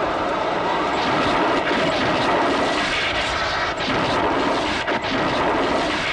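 Loud, steady rushing noise of a science-fiction electrical sound effect, with several sharp crackles in the second half as sparks burst from a control console.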